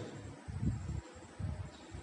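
Marker writing on a whiteboard: a few soft, low rubbing strokes, one about half a second in and another around one and a half seconds, over faint room hiss.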